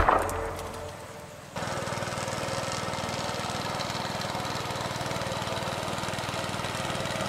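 Music fades out, then about a second and a half in a small engine starts up abruptly in the mix and runs steadily with a fast, even chug.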